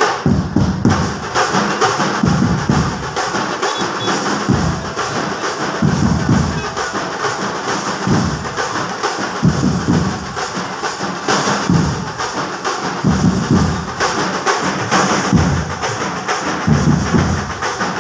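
Loud percussion music of drums: a fast, dense drumming pattern with heavy bass-drum thumps about once a second.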